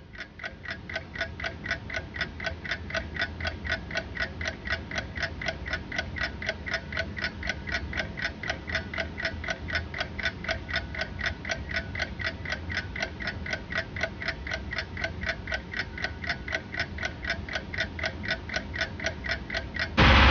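Steady, fast mechanical ticking, about four evenly spaced ticks a second, each with a faint ringing tone. It cuts in abruptly, and loud music cuts it off near the end.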